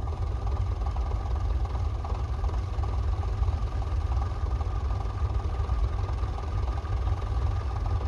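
Massey Ferguson 35 tractor engine running steadily under load as it pulls a mounted plough through the soil.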